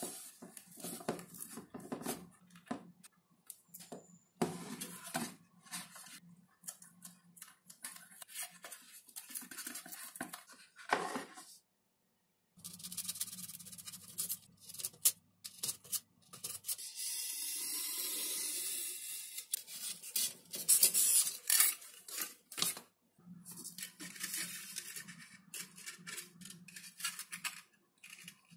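Hand-crafting sounds from work on a foam model: irregular scraping, rubbing and tearing with short clicks, over a low steady hum. About seventeen seconds in there is a steady hiss lasting a few seconds.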